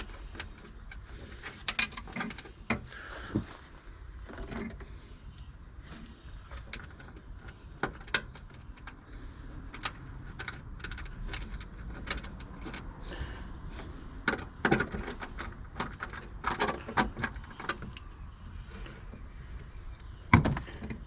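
Scattered clicks and light knocks of small metal parts being handled and fitted, as the screw and washer holding a car aerial's earth wire are put back in. The clicks come more often a little past the middle.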